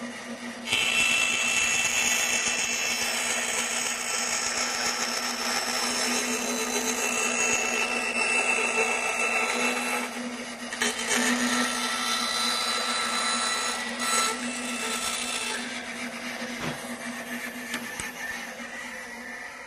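Band saw with a half-inch blade running with a steady hum while cutting curves in wood to the marked line. The cutting noise jumps up about a second in, dips briefly around ten seconds, and eases after about fifteen seconds as the blade load lightens.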